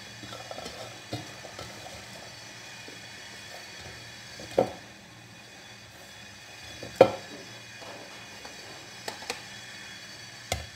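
Sliced green fava beans being scooped by hand from a glazed clay bowl into a metal pot, a soft rustle with a few light clicks. Two sharp clinks of the metal pot against the bowl come about halfway through and again two seconds later, over a steady background hum.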